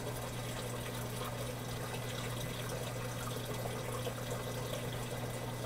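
Running water circulation in a reef aquarium: a steady trickle and splash of moving water over a steady low hum.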